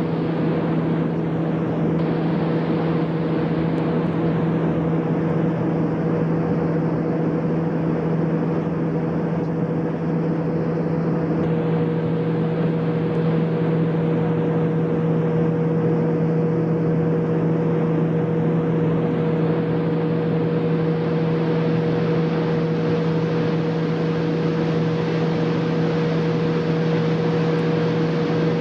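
Steady drone of industrial plant machinery in a machine shop: a constant low hum with a steady higher tone over a broad rushing noise, unchanging throughout.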